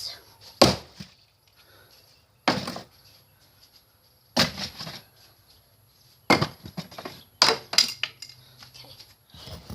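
Hammer blows striking the plastic pieces of a TV remote, about seven sharp hits spaced one to two seconds apart, two of them close together near the middle.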